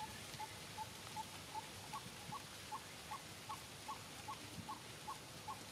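An animal's short call repeated steadily, about two and a half times a second, each note turning upward from about two seconds in.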